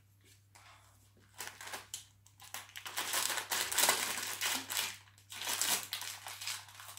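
Plastic wrapping of a biscuit package crinkling and rustling as it is cut open with scissors. It starts about a second and a half in, is busiest in the middle and pauses briefly before carrying on.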